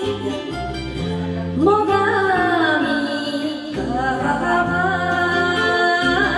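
A woman singing a Japanese song into a karaoke microphone over the karaoke backing track, her voice coming in about a second and a half in and holding long, wavering notes.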